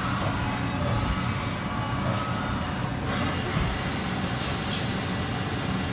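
Haas VF-3 CNC vertical machining center running under power: a steady machine hum with faint high whines that change pitch about two and three seconds in, and a rise in hiss near the end.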